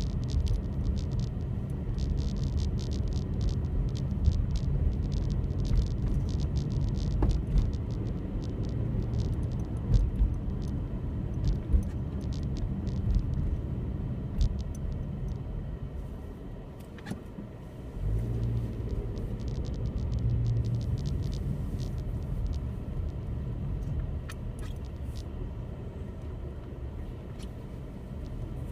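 Low, steady rumble of a car running, with scattered light clicks over it. The rumble drops away for a couple of seconds a little past halfway, then comes back.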